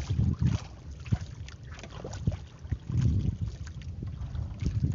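Wind buffeting the microphone in irregular gusts, strongest about a third of a second in and again around three seconds in, with scattered light knocks and clicks.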